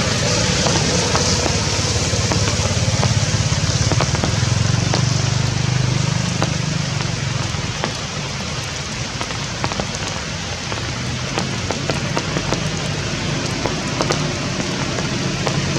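Rain falling steadily: an even hiss with many sharp drop ticks, over a low rumble that swells about a third of the way in.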